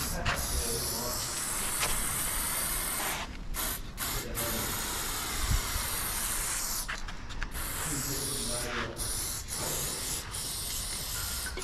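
Aerosol spray paint can hissing as it sprays paint onto a wall, in long sprays with several brief breaks.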